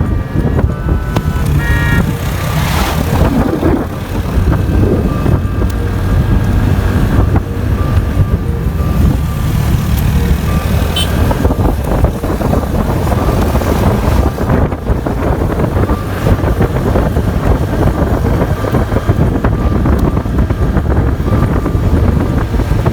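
Steady rumble and road noise of a vehicle travelling along a road, with a couple of short horn toots one to two seconds in.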